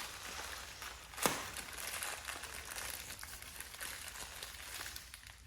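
Plastic packaging crinkling and rustling as a collectible is unwrapped by hand, with one sharp snap about a second in.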